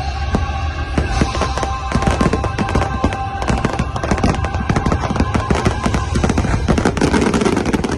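Fireworks display going off in a rapid, dense run of crackling bangs, many a second, over show music with held notes.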